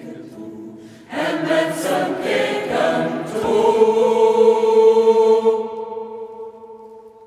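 Mixed choir singing a cappella: soft at first, swelling about a second in, then settling about three and a half seconds in on a long held closing chord that fades away near the end.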